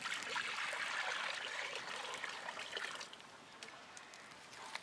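Water poured from a metal pot into a hot iron kadai over a wood fire, splashing steadily for about three seconds and then tailing off.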